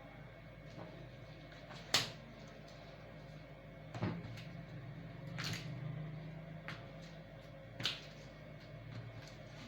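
A handful of sharp clicks and knocks, about five, the loudest about two seconds in, over a low steady hum.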